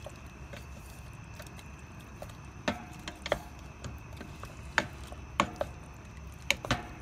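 Wooden spatula stirring chicken curry in a stainless-steel pot, knocking against the metal in about seven sharp clacks that begin nearly three seconds in.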